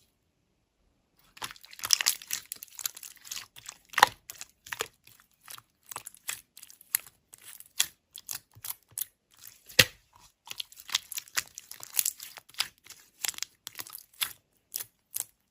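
Slime being squeezed and stretched by hand, giving irregular crinkly crackles and small popping clicks.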